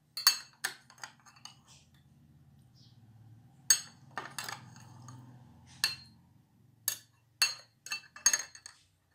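A plastic spoon stirring soapy sugar-water bubble solution in a drinking glass, clinking against the glass about a dozen times at uneven intervals.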